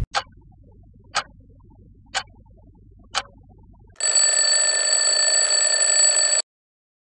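Alarm clock ticking four times, about once a second, then breaking into a loud steady ring for about two and a half seconds that cuts off suddenly.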